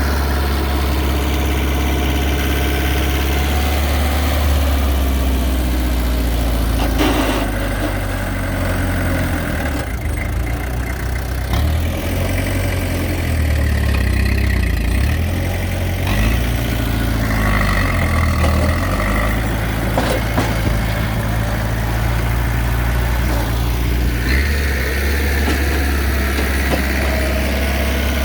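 Excavator engine running with a steady low rumble, its speed dipping and picking up again several times in the middle.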